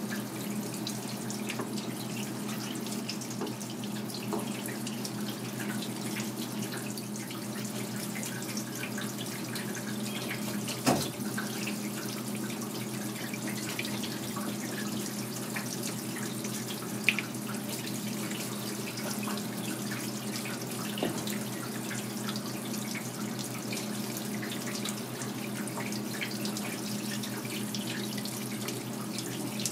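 Tap water running steadily into a sink over a cutting board, with a few short sharp knocks, the loudest about a third of the way in and another just past halfway.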